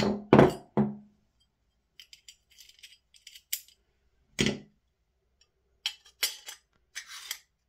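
Metal airsoft rifle parts being handled as a handguard rail is fitted over the barrel nut: a few sharp knocks and clinks in the first second, light rattling, a duller thump about halfway, then more clicks near the end.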